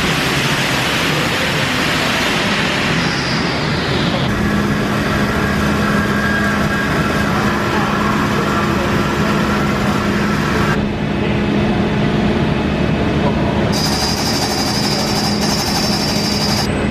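Loud machinery noise from steel-tube fabrication machines. It is steady but changes abruptly a few times: a low steady hum comes in about a quarter of the way through, the sound shifts about two-thirds through, and a high steady whine is added near the end.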